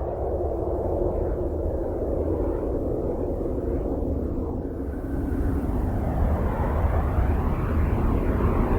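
Space radio and plasma-wave emissions recorded by a NASA spacecraft and converted into sound: a steady rumbling rush of noise. From about halfway, faint criss-crossing rising and falling whistles come in and it grows slightly louder.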